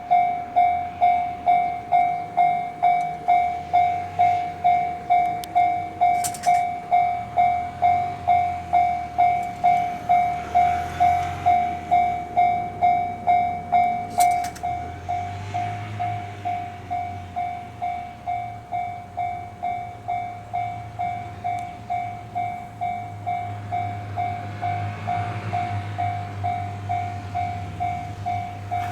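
Japanese railway level-crossing warning bell ringing in a steady electronic ding-ding at about two strokes a second; it becomes quieter about halfway through. Underneath, the low rumble of an approaching train builds toward the end.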